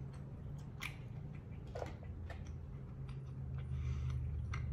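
Someone chewing lobster tail meat with wet mouth clicks and lip smacks: a handful of soft, scattered clicks over a steady low hum.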